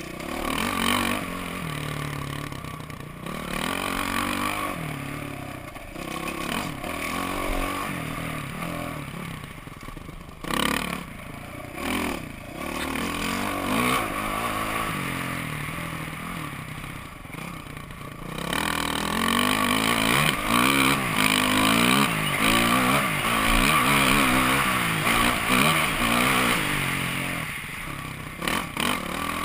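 Dirt bike engine revving up and easing off again and again as the bike is ridden over a steep, rutted dirt track, heard from the rider's helmet. A few knocks from the bike over rough ground about a third of the way in; for the last third the engine is louder and held at high revs.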